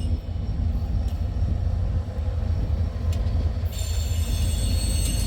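A train passes close by with a heavy, steady low rumble and a couple of faint clicks. Thin high-pitched wheel squeal comes in about three and a half seconds in.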